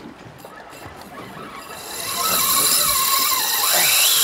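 Spinning reel's drag screaming as a hooked yellowfin tuna strips line off it. The steady high buzz starts about halfway through and gets loud.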